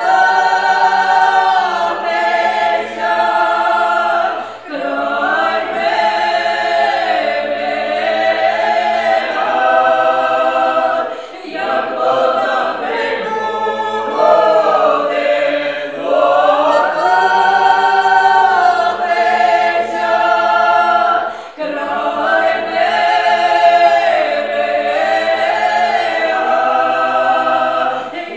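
Small mixed ensemble of women's and men's voices singing a traditional Ukrainian folk song a cappella in several parts, the men's low voices under the women's higher lines, in long phrases broken by short pauses for breath.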